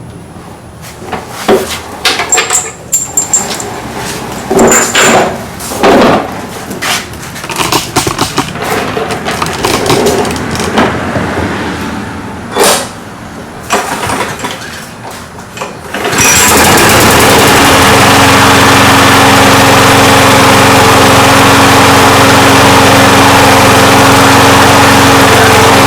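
Yard Machine push mower's recoil starter being pulled several times, the engine turning over without firing; about two-thirds of the way in the engine catches and runs steadily, showing that the mower, which would not start before its broken pull rope was replaced, now starts.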